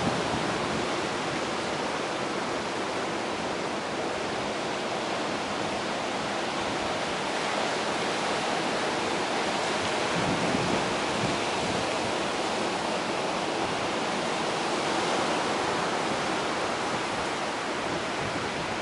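Ocean surf washing over a rocky shore: a steady, even hiss that swells slightly now and then.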